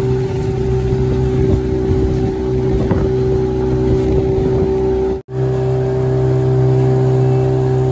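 Boat motor running steadily at cruising speed, with a brief cut to silence about five seconds in.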